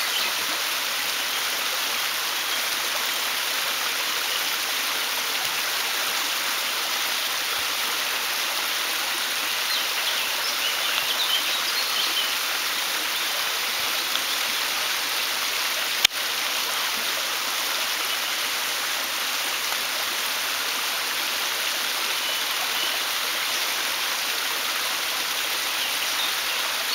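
Shallow forest stream flowing over rocks, a steady rushing of water. Faint bird chirps come through now and then, and a single sharp click sounds about sixteen seconds in.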